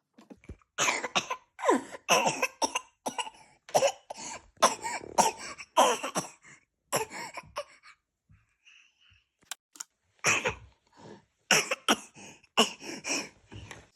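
A young child coughing over and over in short, sharp bursts: a put-on, theatrical cough rather than a real one. The coughs come in two runs with a pause of about two seconds between them.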